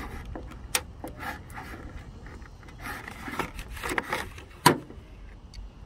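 Plastic pry tool scraping and levering at a 2017 Hyundai Elantra's plastic license plate light housing to pop it out of the body, with scattered small clicks. One sharp click, the loudest sound, comes near the end.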